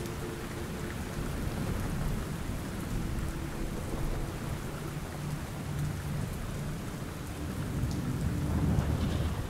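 Steady rain with low thunder rumbling underneath, swelling slightly near the end: a recorded thunderstorm ambience.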